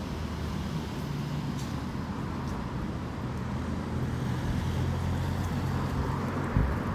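Road traffic: a steady low engine rumble of vehicles with a general road-noise haze, growing a little louder about halfway through.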